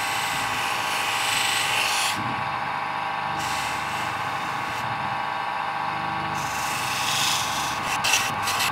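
Electric polishing motor spinning a coarse 80-grit Scotch-Brite non-woven abrasive wheel, with a steel knife blade pressed against it: a steady motor hum under three long passes of rasping hiss as the blade rubs across the wheel. A few sharp clicks near the end.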